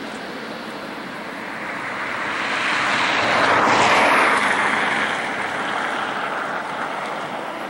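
Engine noise of a landing four-engine jet airliner, a Cubana Ilyushin Il-96. It builds to its loudest about four seconds in as the aircraft passes and touches down, then fades.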